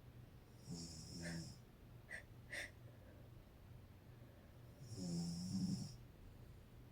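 A woman snoring: two snores about four seconds apart, each lasting about a second, a low buzzing tone with a hiss over it. Two short clicks come between them.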